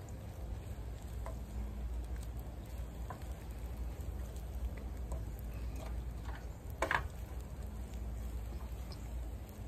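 Wooden spatula stirring and scraping fried rice in a frying pan over a portable camp stove, with light sizzling and scattered soft taps; one louder clack about seven seconds in.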